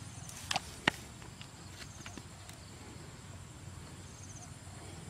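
Bare hands digging in wet mud: a few short wet slaps and squelches about half a second to a second in, the sharpest near one second, then faint scattered ticks over a steady low background hum.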